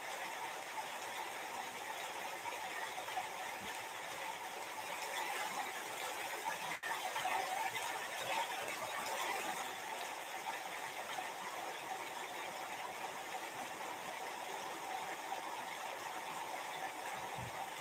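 Steady background hiss of room noise, swelling a little in the middle.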